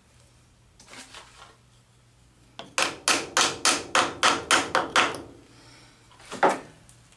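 Soft-faced mallet tapping a stainless steel rod down into a milling machine vise: a quick run of about ten sharp taps, roughly four a second, then a pause and one last, louder blow.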